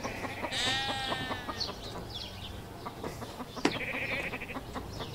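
A brief pitched call, about a second long, soon after the start, then a sharp click a little after the middle as a plastic bottle cap is handled.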